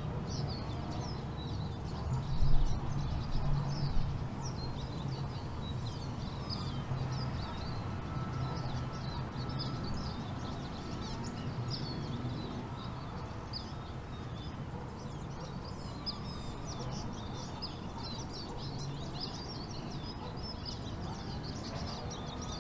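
Daytime outdoor ambience: many small birds chirping and twittering throughout over a steady low rumble, with a few louder low bumps about two and a half to four seconds in.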